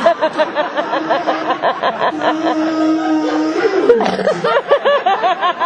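A performer's voice imitating an electric carving knife: a rapid pulsing buzz, about six pulses a second, with a steady held hum about two seconds in before the pulsing resumes.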